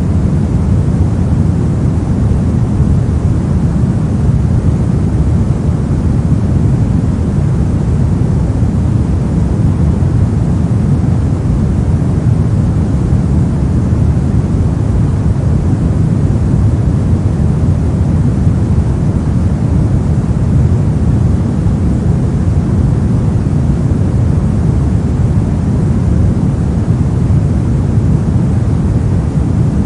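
Steady, unchanging pink noise: an even rushing hiss, heaviest in the low end.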